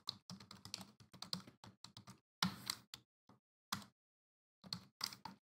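Typing on a computer keyboard: a run of quick, uneven key clicks, with a pause of about a second a little after the middle.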